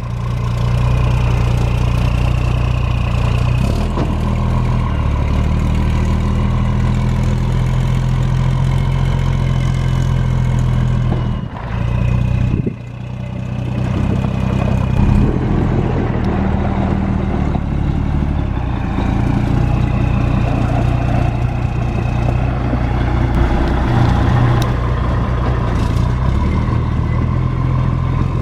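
Pickup truck engine running as a manual-transmission truck is driven off under light throttle, its pitch stepping up and down a few times. It drops away briefly about twelve seconds in, then picks up again.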